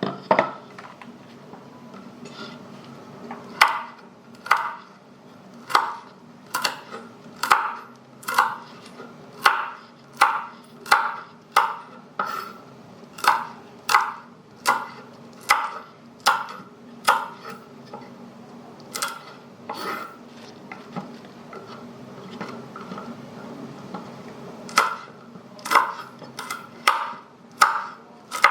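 Knife slicing chili peppers: a run of sharp chopping strokes, about one a second, with a gap of a few seconds about three-quarters of the way through.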